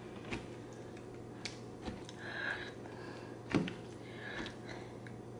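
A fork clicking, tapping and scraping against a clear plastic bowl as it twirls and lifts creamy zucchini noodles and shrimp. It gives a few scattered sharp ticks, the loudest knock about three and a half seconds in, with a short soft scraping noise in between.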